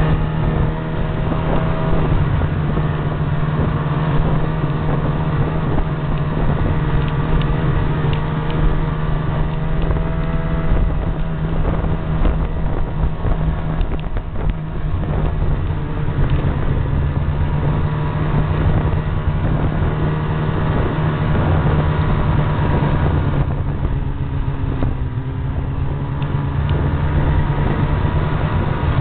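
Ski-Doo Rev snowmobile running steadily at trail speed, heard from the rider's seat: a constant engine drone with a rushing noise over it, easing off slightly about three-quarters of the way through.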